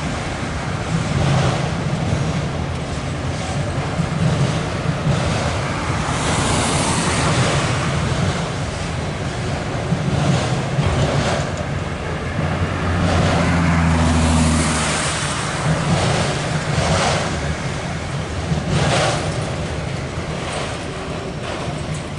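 Steady tyre, road and wind noise of a moving car heard from inside it, with a low engine hum that swells for a couple of seconds about midway.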